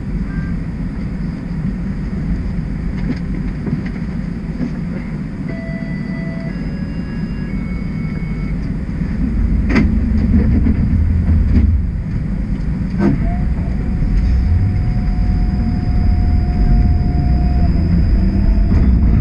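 Toronto streetcar heard from inside, idling at a stop and then pulling away: the low rumble of motors and wheels on the rails gets louder about halfway through. There are a couple of sharp clicks, and a steady whine lasts a few seconds.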